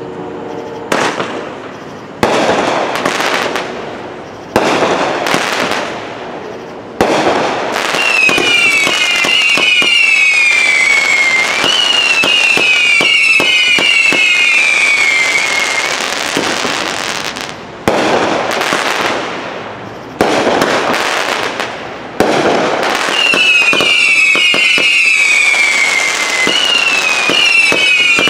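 World Class Fireworks 'Trash Panda' 37-shot, 200-gram firework cake firing. There are separate shots with gaps in the first seven seconds, then a near-constant barrage of shots and crackling breaks, with repeated runs of high whistles that fall in pitch.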